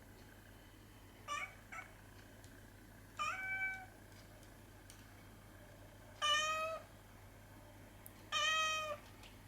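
Domestic cat meowing in a small voice: four short meows about two seconds apart, the first a quick double call.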